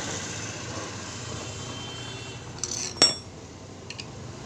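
Metal parts of a motorcycle's magneto flywheel and one-way starter clutch clinking as they are handled: one sharp, ringing metallic clink about three seconds in, a fainter tap just before it and a few light ticks near the end, over a steady hiss.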